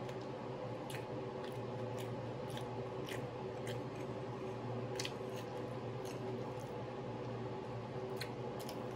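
Close-up eating sounds: chewing, with a dozen or so short clicks and smacks at irregular intervals, over a steady low hum.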